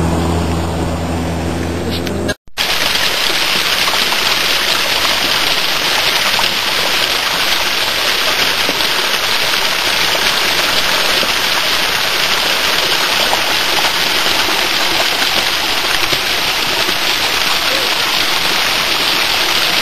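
Small waterfall splashing steadily onto mossy rocks. It starts about two and a half seconds in, after a short dropout that cuts off a steady low hum.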